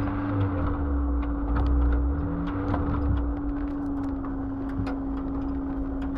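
4x4 vehicle driving slowly along a rutted mud track: the engine runs with a steady, unchanging drone over a low rumble, with scattered clicks and knocks as the vehicle jolts over the ruts.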